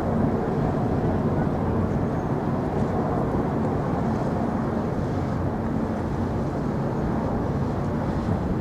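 Steady low engine drone with a faint hum, holding even throughout.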